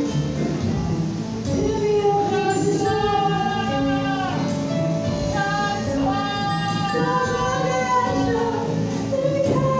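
A song played by a band, with a woman singing long held notes with vibrato.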